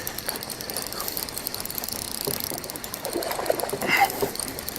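Fishing reel being cranked in a fast run of ticking clicks as a hooked bass is reeled in.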